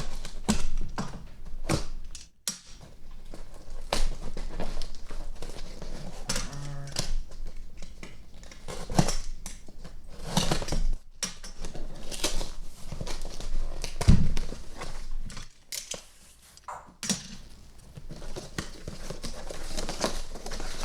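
A cardboard shipping box being opened by hand: irregular crinkling, tearing and rustling of packing material, with scattered knocks and thunks as the box and its contents are handled, the loudest thump about fourteen seconds in.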